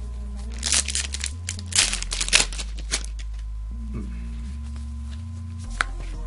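Foil Yu-Gi-Oh booster pack wrappers crinkling and crackling in a quick run of bursts as packs are handled, then a single click near the end.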